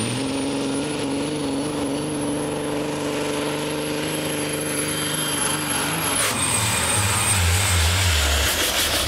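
Pro stock semi truck's diesel engine under full load pulling a sled, held at a steady pitch, with a thin high turbo whistle over it that rises slowly. About six seconds in, the sound cuts to another pulling semi, a deeper, rumbling engine.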